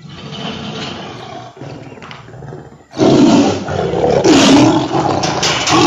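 Tiger roaring: a quieter low rumble at first, then a sudden loud roar about three seconds in that carries on.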